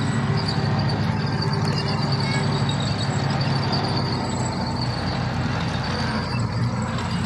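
FV432 armoured personnel carrier driving past, its engine running with a steady low drone and its steel tracks rattling over the dirt.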